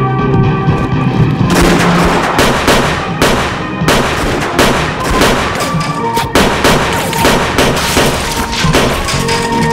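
Rapid gunfire, shot after shot in a fast barrage starting about a second and a half in, over the film's music score.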